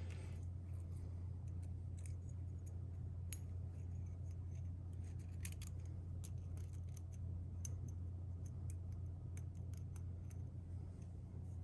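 Faint, scattered small metallic clicks and ticks from handling piston rings while fitting them onto a small engine's piston, over a steady low hum.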